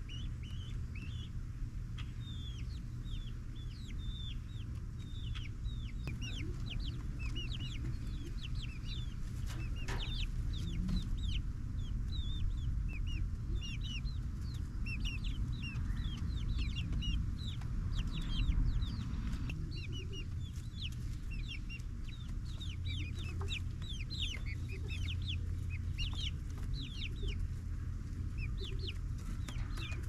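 A small flock of two-month-old chickens peeping, with many short, high, falling peeps coming in quick, irregular succession, over a steady low rumble.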